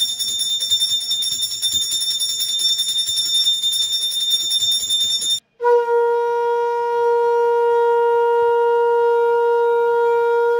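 Conch shell (shankha) blown in household puja worship: a high, thin whistling tone held for about five seconds, then after a brief break a lower, fuller steady note.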